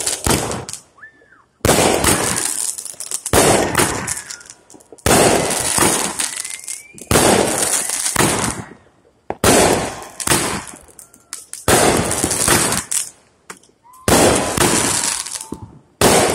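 Fireworks going off one after another: about eight loud bangs, roughly two seconds apart, each trailing off in a crackle that dies away before the next.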